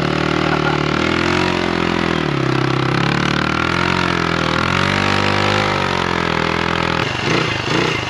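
Motorcycle engine running, its revs rising and falling every second or so.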